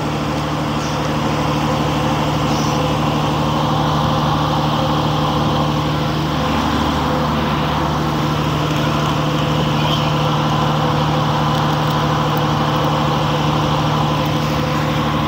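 Engine of a large skipjack-tuna purse-seine fishing boat running at a steady speed: a constant, unchanging drone.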